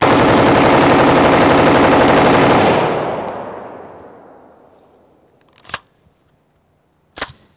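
CMMG Mk47 Mutant machine gun firing one long fully automatic burst of about two and a half seconds, its echo then dying away. Two short sharp clacks follow near the end.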